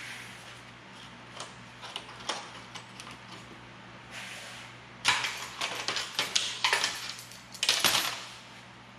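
Steel clamps being loosened and taken off a freshly welded steel frame on a steel welding table: scattered metal clicks and knocks, then louder clanking and rattling about halfway through.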